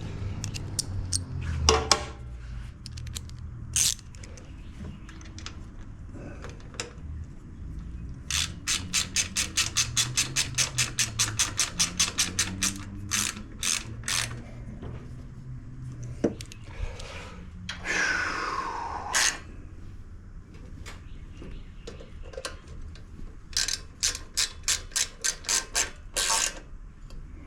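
3/8-inch ratchet wrench clicking in several quick runs of about five clicks a second as bolts are turned on a small engine, with pauses and a few single knocks between. A brief sliding sweep about two-thirds through.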